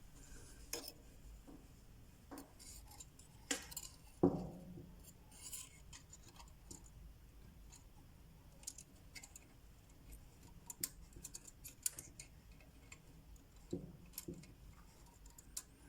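Faint scattered clicks and light knocks of pliers working a small crimp terminal onto a dryer motor's winding wire, with a sharper knock about four seconds in.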